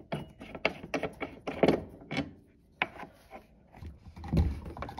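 Hand-loosening the terminal nut of a Whirlpool dishwasher's heating element: irregular clicks, scrapes and knocks of fingers on plastic and metal parts, with a heavier thump a little after four seconds.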